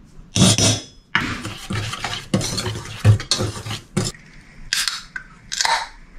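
A utensil stirring dry flour batter mix in a bowl, with irregular scraping strokes and light clinks against the bowl.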